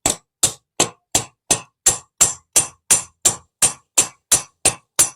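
Hammer blows peening over a rivet in an exhaust fan motor's end cover, flaring it to hold the new bush in place. About fifteen sharp, ringing strikes at a steady pace of about three a second.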